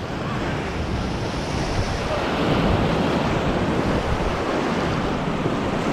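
Class IV whitewater rapid rushing and churning around the boat, a steady loud roar of water, with wind buffeting the microphone.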